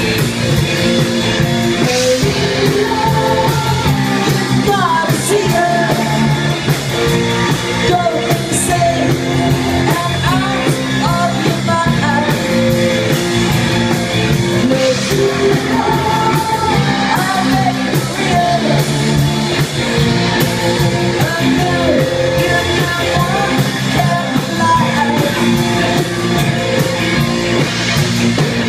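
Live rock band playing: drum kit, electric and acoustic guitars and a voice singing, all loud and steady.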